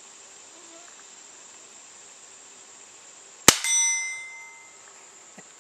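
A single .22 CB short fired from a Henry Mare's Leg lever-action pistol, a small sharp pop that sounds like a cap gun, about three and a half seconds in, followed at once by a steel target ringing and fading over about a second. Crickets chirp steadily in the background.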